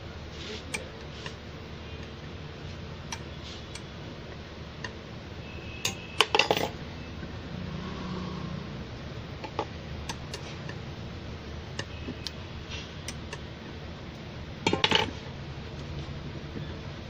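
Small metallic clicks and clinks as a rubber diaphragm is fitted onto a vacuum brake booster's metal piston with a metal pick, with two louder bursts of metal clatter, about six seconds in and near the end, over a steady low hum.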